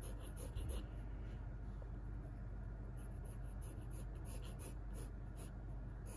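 Graphite pencil scratching on paper in short sketching strokes, with a lull of about two seconds near the start of the second half and a soft knock about half a second in.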